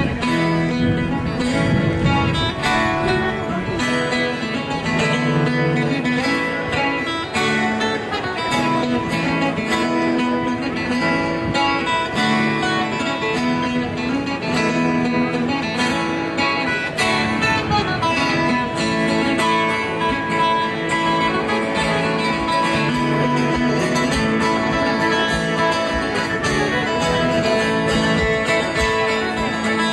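Live folk band playing an instrumental tune: strummed acoustic guitars over electric bass, with a fiddle playing the melody.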